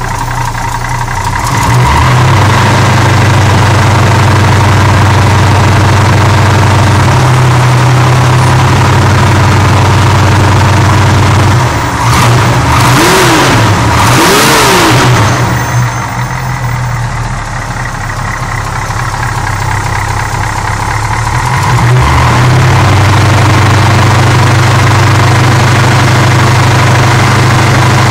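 Carburetted V8 engine running steadily and loudly, with two quick throttle blips about halfway through, the pitch rising and falling each time, before it settles back to a lower, quieter idle and then picks up again.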